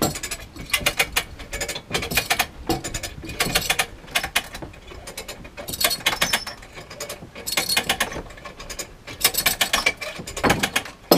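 Hand-operated come-along ratcheting: the pawl clicks in repeated short runs as the handle is pumped, stroke after stroke, with a few brief pauses, while it drags the old boat engine on skids along waxed rails.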